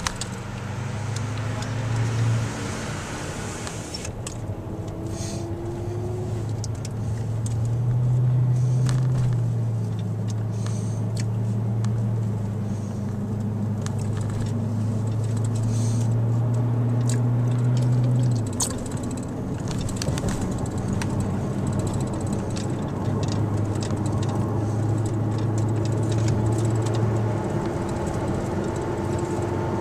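Car engine and road noise heard from inside the cabin while driving off, a steady low hum that rises in pitch over the first few seconds as the car picks up speed and shifts up and down later.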